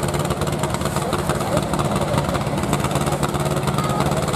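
Hanomag R16 tractor engine running steadily under heavy load as it drags a pulling sled at very low speed, while the tractor loses traction.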